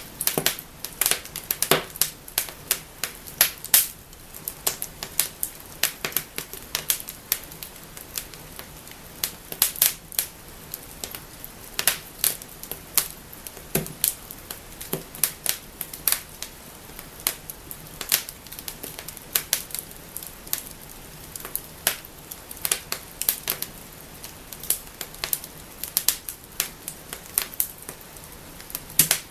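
Wood fire crackling and snapping in a fireplace: irregular sharp pops and snaps over a faint steady hiss of the flames.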